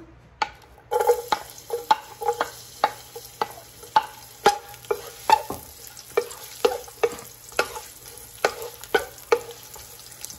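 Chopped garlic sizzling in hot oil as it is sautéed to brown, with a wooden spatula knocking and scraping against a large metal pot two or three times a second, each knock ringing briefly. The sizzle starts about a second in.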